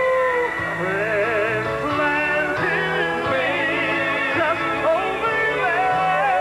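Gospel group singing in harmony over instrumental accompaniment, with long held notes that waver with vibrato.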